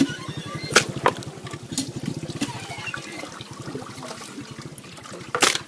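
Raw mutton pieces being scooped by hand and dropped into a metal cooking pot: wet squelching and slapping, with a few sharp knocks, the loudest near the end.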